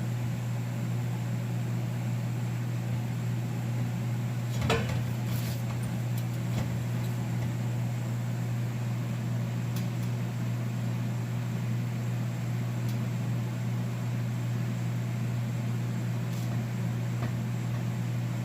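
Steady low mechanical hum, with one short knock about five seconds in and a few faint ticks.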